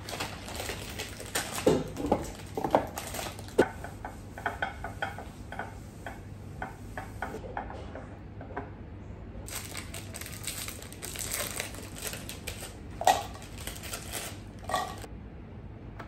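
Plastic cookie packet crinkling as crushed Oreo cookies are shaken out of it into a glass dish, with many small crackling clicks. Further rustling follows, with two sharper knocks against the counter near the end.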